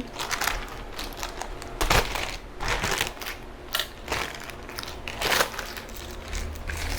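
Packaging being handled and unwrapped by hand: irregular crinkling and crackling, with a few louder crunches.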